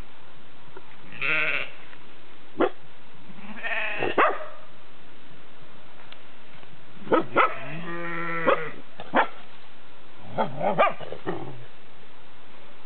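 Sheep bleating several times in wavering calls, the longest about a second long, while a small dog barks at them in short, sharp yaps scattered between the bleats.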